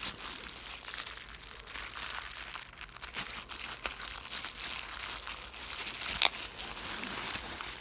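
Plastic packaging crinkling and rustling as the kit's small parts are handled, with scattered sharp clicks; the loudest click comes about six seconds in.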